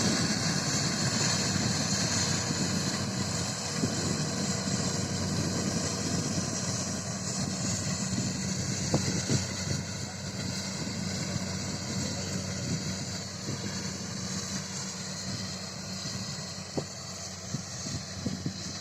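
An engine running steadily, with a few faint clicks, slowly growing fainter.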